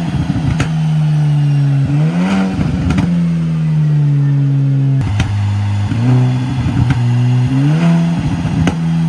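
Tuned Hyundai Veloster turbo's 1.6-litre turbocharged four-cylinder and exhaust on the overrun: the engine note sags slowly, then twice climbs quickly as it is rev-matched on a downshift, with a run of exhaust pops and crackles from the tune's pop-and-bang map.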